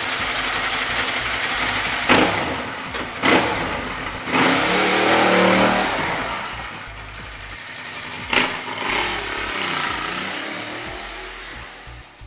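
Ducati 1098 sport bike's V-twin engine revving hard in a few sharp throttle blips, then accelerating, its pitch falling and the sound fading near the end.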